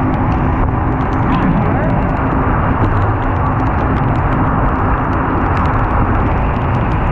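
Steady, loud rush of wind and water noise from a small powerboat running fast through choppy sea in storm wind, with the wind buffeting the camera microphone and the hull and outboard motors under it.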